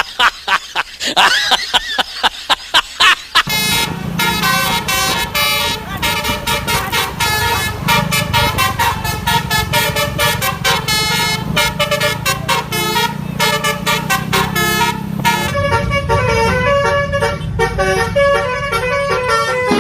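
Telolet-style multi-tone bus horn playing a fast tune of short notes stepping up and down in pitch, over a steady low hum. The first few seconds are a looser run of sliding tones, and the tune changes near the end.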